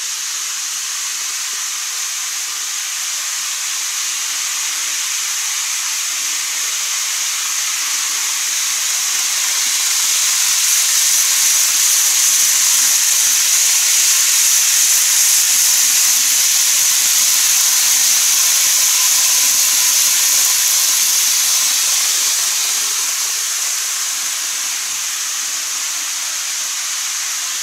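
Model of a 200 series Shinkansen running along the track: a steady high-pitched hiss of its motor and wheels. The hiss swells as the train passes, between about ten and twenty-two seconds in, then eases off again.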